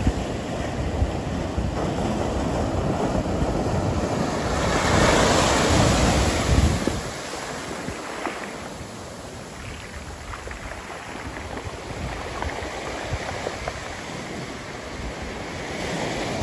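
Ocean surf breaking and washing up the beach, with wind buffeting the microphone. A wave crashes loudest about five seconds in, then the wash settles to a steadier, quieter hiss.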